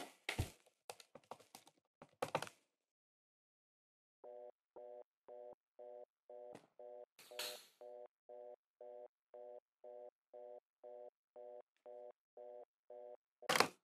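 A telephone fast busy tone, a pulsing beep about three times a second, heard from the earpiece of a phone held to the ear. It is preceded by clicks of the phone being handled, and a sharp knock comes near the end.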